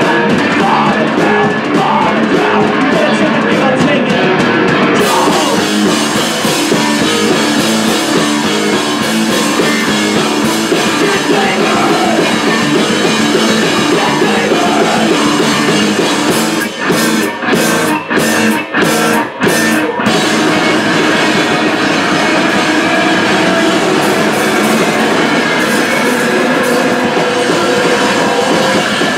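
Live rock band, with electric guitars, electric bass and drum kit, playing loud. A little past halfway, the band hits about five abrupt stop-start breaks before playing on.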